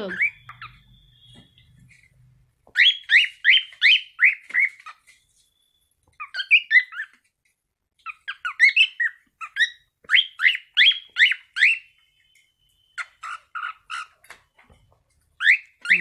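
Young cockatiel singing: runs of quick, repeated whistled notes, about four a second, in phrases broken by short pauses.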